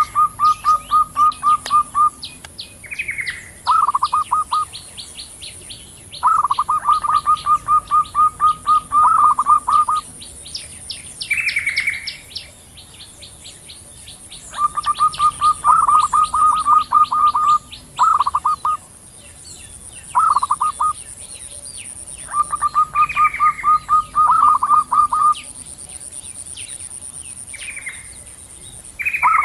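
Zebra doves (perkutut), male and female, calling back and forth. The calls are repeated runs of fast, even staccato notes, each lasting one to several seconds, with short rising notes between runs. Quicker high-pitched chirping and a steady high whine sit behind them.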